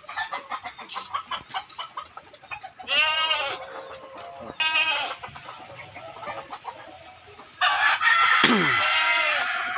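Chickens clucking, with short calls about three and five seconds in. Then a rooster crows loudly for about two seconds near the end.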